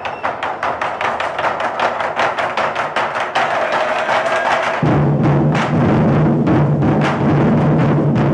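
An ensemble of Chinese barrel drums beaten with sticks: a fast run of light, clicking strokes with little bass, then a little past halfway the deep drumheads come in loud and full under rapid beating.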